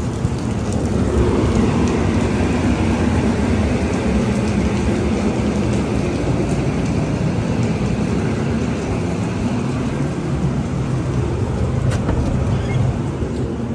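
Steady low rumble of industrial plant machinery, with a faint click near the end.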